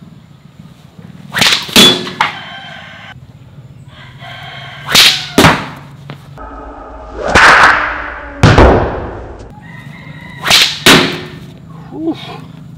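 A sling being whirled and cast, cutting the air in sharp whooshes that come in quick pairs about every three seconds, with one longer whoosh a little past the middle.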